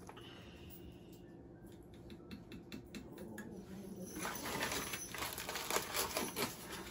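Sugar bag rustling and crinkling as sugar is spooned out of it into a mug, with light clicks of the spoon. The crinkling gets busier and louder about four seconds in.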